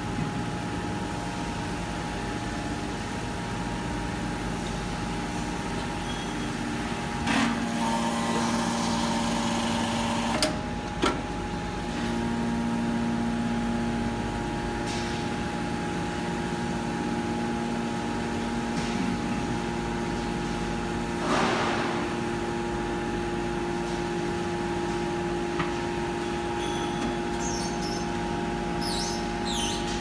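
Hydraulic power unit of an Enerpat scrap metal baler running with a steady hum, its tone stepping to a different pitch several times. A hiss about a quarter of the way in, two short knocks shortly after, and a burst of hiss about two-thirds of the way through.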